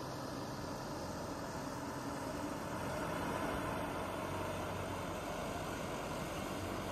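Explorer 24 hovercraft running steadily at low speed, its engine and fans making a constant rushing drone.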